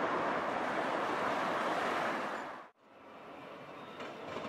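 Steady hiss of road traffic on the street below. It cuts off suddenly about two and a half seconds in, and a quieter street hum follows.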